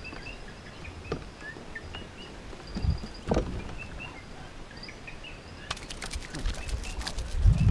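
Small birds chirping over and over in the background, with two sharp knocks about three seconds in and a quick run of rattling clicks from about six seconds in.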